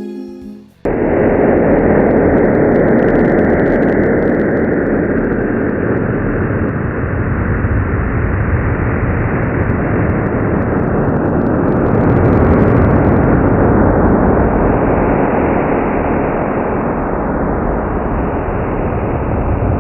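NASA's black hole sonification, pressure waves in the hot cluster gas around a black hole amplified and shifted up into hearing range. It is a dense, steady, rumbling drone that begins abruptly about a second in.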